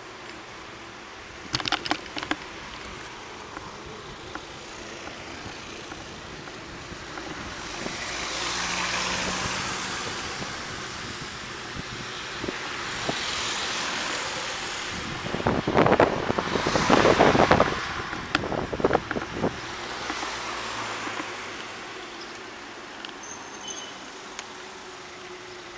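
Road traffic heard from a bicycle in city streets: cars passing in slow swells of tyre and engine noise. Bursts of clatter cut in about two seconds in and again, loudest, around the middle.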